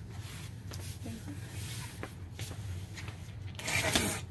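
Box cutter slicing the packing tape along a large cardboard box, with blade and cardboard scraping, and a louder tearing rasp of tape or cardboard near the end. A steady low hum runs underneath.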